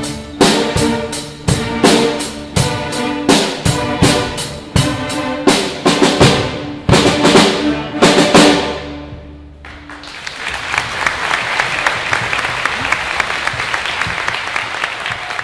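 Middle school orchestra with drum kit playing its closing bars: steady drum strokes about twice a second over a held low note, ending on a final chord that rings out and fades about nine seconds in. Then an audience applauding.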